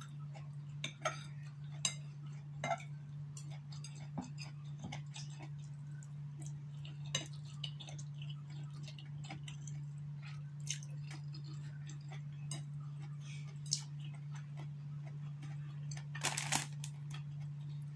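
Eating noises: scattered small clicks and taps of chopsticks against a plate of noodles, with chewing, over a steady low hum. A brief louder noisy sound comes near the end.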